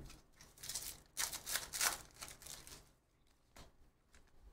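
A foil-wrapped baseball card pack being torn open and its wrapper crinkled, several short crackly rustles in the first two and a half seconds.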